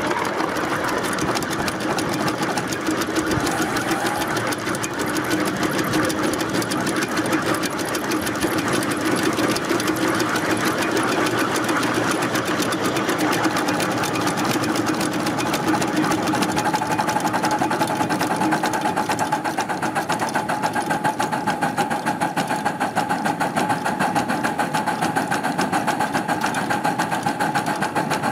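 Coal-fired miniature live-steam Mogul (2-6-0) locomotive running along the track, its running gear and exhaust making a fast, even clatter heard up close on the locomotive.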